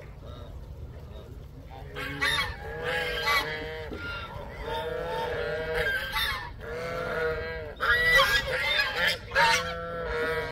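A flock of geese honking, with many loud calls overlapping from about two seconds in.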